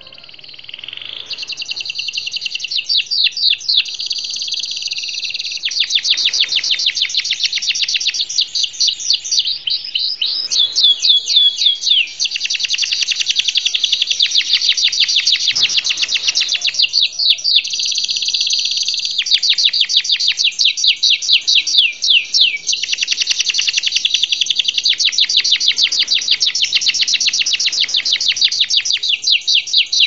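F1 Yorkshire canary singing a long, almost unbroken song of rapid trills, moving from one trill to the next every second or two with only brief pauses.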